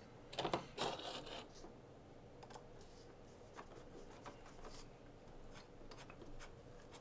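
Small screws and a hand driver being worked into a metal RC car steering part: scattered faint clicks and scratches, with a few louder handling rustles in the first second.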